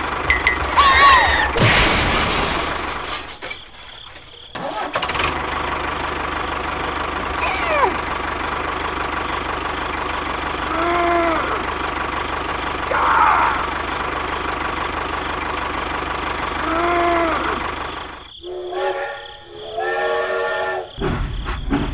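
Tractor engine running steadily, with short high squeaky cartoon-like vocal calls now and then. Near the end the engine cuts out and a few short steady horn-like blasts sound.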